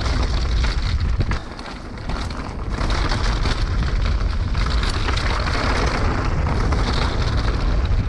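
Mountain bike rattling heavily as it rides down a rough trail, a dense clatter of small knocks over tyre noise, with wind buffeting the microphone. The noise drops briefly about one and a half seconds in, then picks up again.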